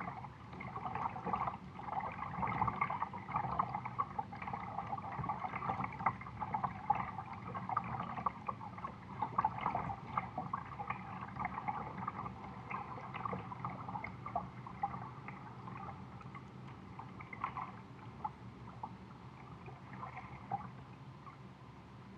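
Water lapping and gurgling against a kayak's plastic hull as it glides on a river, with small irregular splashes, growing fainter toward the end.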